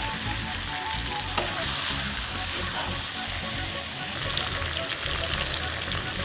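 Food sizzling and crackling in hot oil in a pan: a steady frying hiss with small scattered pops.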